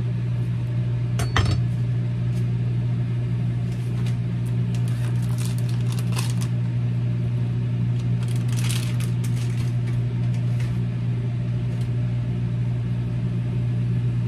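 Microwave oven running with a loud, steady low hum as it cooks a potato. A knife knocks once on a wooden cutting board a little over a second in, and a plastic zip-top bag crinkles around eight to nine seconds in.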